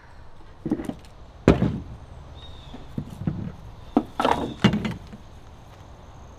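Knocks and clatters of hunting gear, an aluminum climbing stick among it, being handled in a pickup truck bed: about six sharp knocks, the loudest about a second and a half in.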